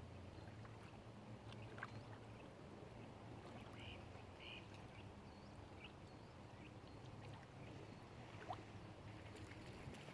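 Faint waterside ambience: a steady low rumble with a few short, high bird chirps about four seconds in, and two brief faint sharp sounds.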